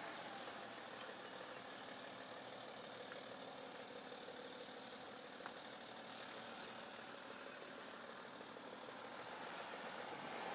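Cold diesel car engine running steadily at low revs, a plain engine hum with no clear whistle standing out.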